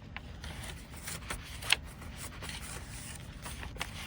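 Paper and card of a handmade junk journal being handled, rustling with small scattered clicks and one sharper tap a little before two seconds in.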